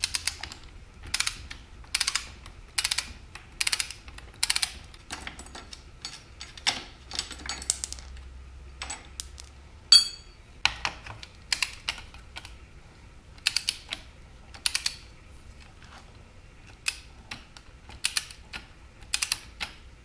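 Socket ratchet clicking in short runs while a 15 mm rear axle nut on an electric bike is being undone, with one short ringing metallic ting about ten seconds in.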